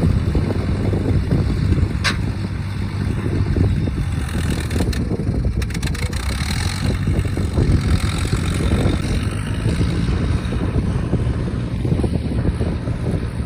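Gasoline engine running steadily on the road, with wind buffeting the microphone. A sharp click comes about two seconds in, and a few more clicks around five to six seconds in.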